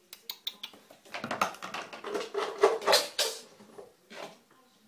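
Ferrets scuffling in a bathtub: a few sharp clicks, then a dense run of clattering knocks and scrabbles on the tub's hard surface, with one more short burst near the end.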